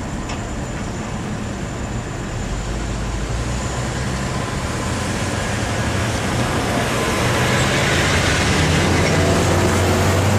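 Road traffic crossing the railroad tracks as the crossing gates rise, with car and truck engine and tyre noise getting louder over the last few seconds.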